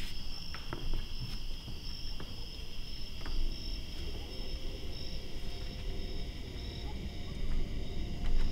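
Crickets chirping steadily in a continuous high pulsing chorus, with scattered small clicks and knocks. A faint low tone comes in about four seconds in.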